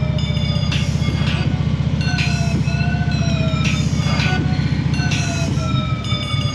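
2015 Harley-Davidson Ultra Limited's Twin Cam 103 V-twin running at low speed, a steady low rumble, with music playing over it: repeating falling, sliding high notes.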